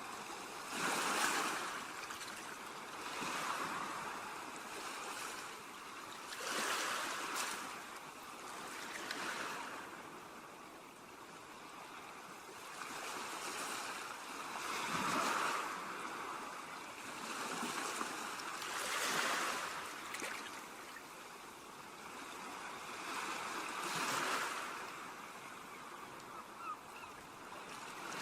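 Ocean surf breaking and washing on a beach, swelling and fading every few seconds in irregular waves of rushing noise.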